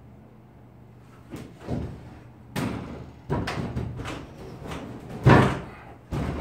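Large wooden kitchen cabinet being slid and shifted over the edge of a loft: wood scraping and knocking against wood, starting about a second and a half in, with a loud thud about five seconds in.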